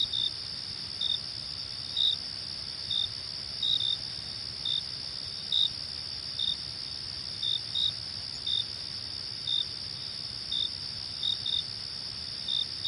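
Crickets chirping at night: a steady, high continuous trill, with one louder cricket giving short chirps every half second to a second, sometimes two in quick succession.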